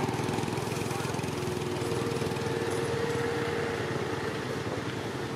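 A small engine running steadily: a continuous low, rapidly pulsing motor drone, joined by a steady hum about two seconds in.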